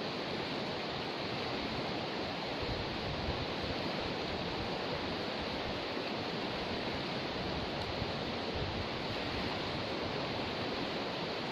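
Steady rushing of river water in a river just after a flood, an even hiss with no breaks.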